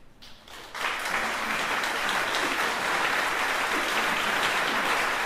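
Audience applauding, breaking out about a second in after a near-quiet moment and then holding steady.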